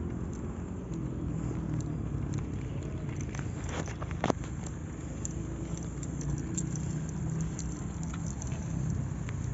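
Steady low rumble of a bicycle ride on an asphalt road, with wind and road noise on the phone's microphone. Scattered clicks run through it, and there is a sharp knock about four seconds in, from the shaking camera.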